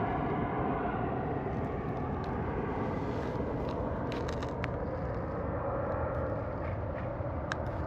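Steady drone of a distant engine, its pitch slowly sinking, with a few faint clicks near the middle and near the end.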